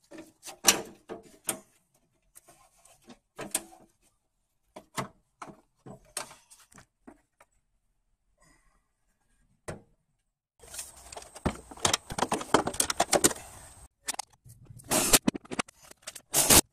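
Plastic windshield cowl panel and its clips being handled and worked free: scattered clicks and knocks. About ten seconds in comes a few seconds of scraping and rattling, and near the end a last cluster of knocks.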